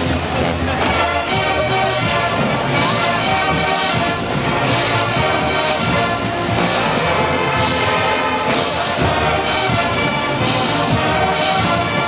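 Brass band music playing continuously, with many horns sounding together.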